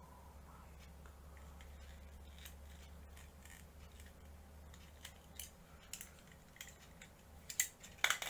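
Sharp clicks and snips from the plastic parts of an SD Gundam model kit being worked by hand: scattered from about five seconds in, the loudest cluster near the end. A faint low hum lies underneath.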